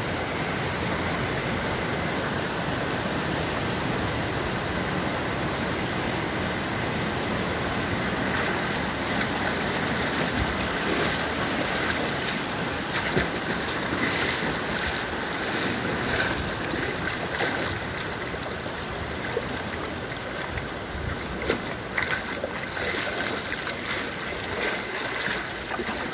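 Steady rush of flowing stream water, with scattered short splashes and knocks in the second half.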